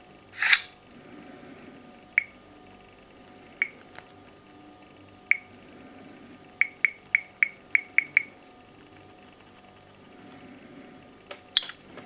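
Samsung Galaxy S (GT-I9003) touchscreen sounds: a short swishing unlock sound about half a second in, then single short high tap clicks every second or two as the screen is touched, and a quick run of about seven taps some six to eight seconds in.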